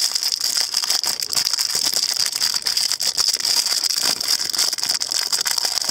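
Thin metal foil wrapper crinkling and crackling continuously as fingers unwrap and pull it apart.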